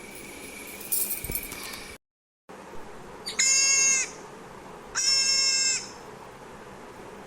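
Deer calling: two high, steady-pitched bleats, each well under a second long and about a second and a half apart. Before them a stretch of hissy background ends in a brief dropout to dead silence.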